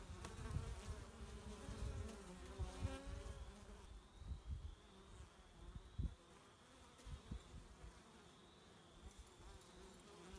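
Honey bees buzzing as they fly in and out of a hive entrance: a faint, steady hum. Low rumbles run under it, heaviest in the first few seconds.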